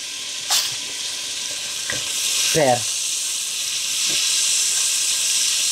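Pieces of meat sizzling steadily in hot oil in a stainless steel pot while being stirred with a wooden spoon, with a couple of sharp knocks about half a second in and near two seconds.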